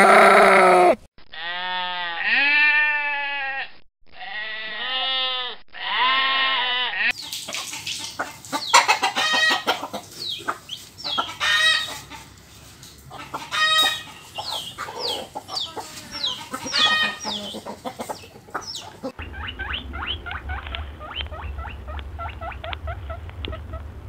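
Helmeted guineafowl calling: many short, harsh notes in quick succession, loudest around the middle. Before them come three long animal calls, each rising and then falling in pitch. After them, near the end, a low steady hum with faint quick chirps.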